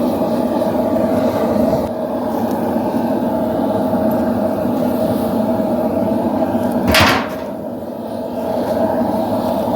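Forge running with a steady roar and a low hum. About seven seconds in there is one sharp, loud knock.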